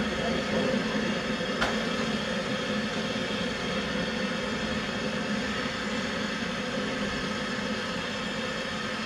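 Steam train running with a steady mechanical hum, and one sharp click about a second and a half in.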